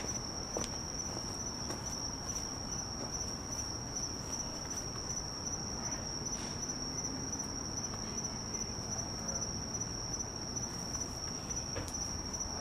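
Night insects trilling: one unbroken, steady high-pitched tone. A few faint light ticks sound about half a second in, around the middle and near the end.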